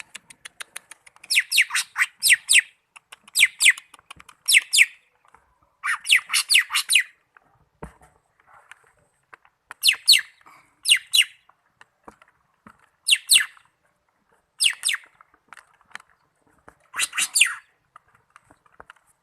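Cucak ijo (green leafbird) singing: loud clusters of two to five quick downward-sweeping whistled notes, repeated every second or two, after a short run of fast faint ticks at the start.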